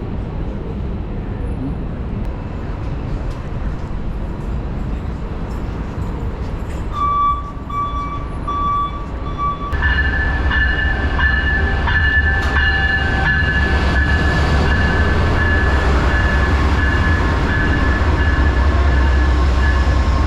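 Passenger train at the station platform, with a steady low rumble. About seven seconds in, a pulsing tone sounds for a few seconds. Then the rumble grows louder and a steady high squeal joins it.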